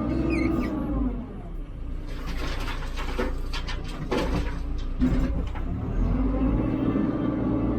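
Hidromek 102B backhoe loader's diesel engine labouring and revving up and down as the hydraulics work the bucket while loading gravel, with a run of knocks and clatter in the middle.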